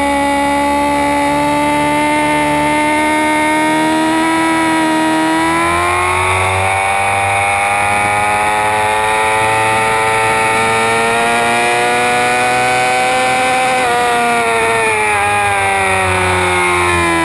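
Suzuki GSX-R 600's inline-four engine heard from on board, pulling hard: its pitch climbs steadily over a few seconds, holds high for several seconds, then falls away near the end as the bike slows.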